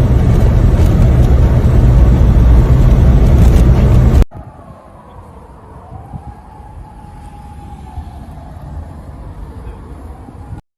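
Loud, steady rumbling noise with a deep low end that cuts off abruptly about four seconds in. It is followed by a much quieter low rumble with a faint tone that swells and fades.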